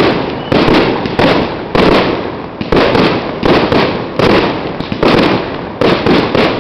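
Fireworks display: aerial shells bursting one after another, about one or two loud bangs a second, each fading off before the next.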